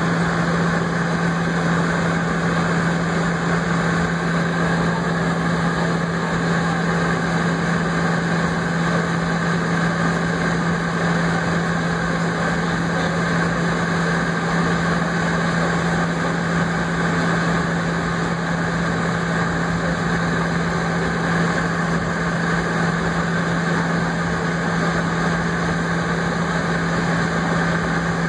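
Jet airliner cabin noise while taxiing: a steady rush of the engines at idle and the cabin air, with a constant low hum.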